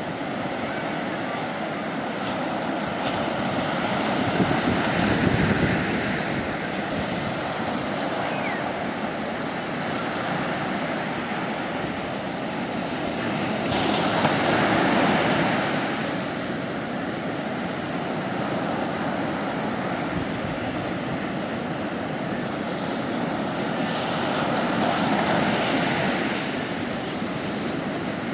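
Sea waves breaking on a beach: a steady wash of surf that swells about every ten seconds as each wave breaks and runs up the shore.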